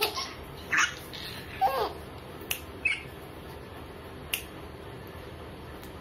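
Babies giving two short squealing, laughing vocal sounds in the first two seconds, the second a quick up-and-down squeal, followed by a few sharp clicks.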